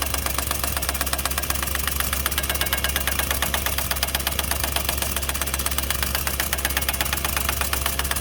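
Impact wrench hammering continuously at a rapid even rate on the front wheel hub's fastener of a Chevy Avalanche 4x4, working to break loose a nut that is still tight.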